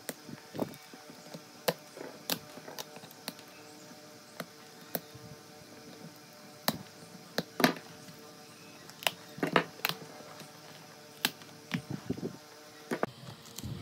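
Irregular sharp clicks and taps of pliers and a screwdriver prying staples out of an upholstered seat board and knocking on a wooden workbench.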